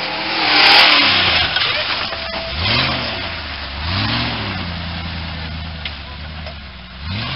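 Stripped-down off-road 4x4 buggy's engine revving hard in repeated bursts as it climbs a muddy bank, the pitch rising and falling four times. A loud rushing noise swells about a second in.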